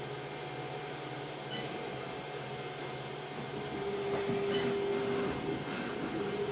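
Stepper motors of a home-built CoreXY 3D printer whining as the print head moves, over a steady hum. A louder, steady motor tone comes in about four seconds in and lasts for about a second and a half.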